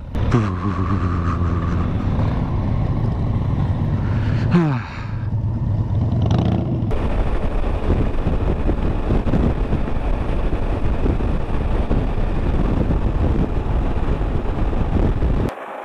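Motorcycle on the move: an engine running at a steady pitch, with a pitch change about four and a half seconds in, then mostly rushing wind and road noise after about seven seconds. The sound cuts off abruptly just before the end.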